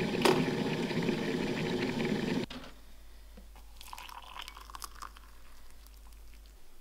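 Morphy Richards electric kettle rumbling as it heats toward the boil, with a click just after the start; the sound cuts off abruptly about two and a half seconds in. Then, about four seconds in, water is poured from the kettle into a mug, a quieter trickle and splash.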